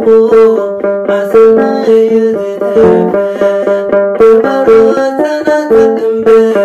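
Begena, the large Eritrean and Ethiopian box lyre, plucked in a steady repeating figure of notes, about two strong plucks a second with lighter ones between.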